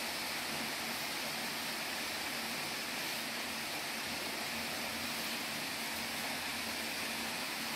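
Steady, even background hiss with a faint low hum underneath, like a running fan or air conditioner; nothing else stands out.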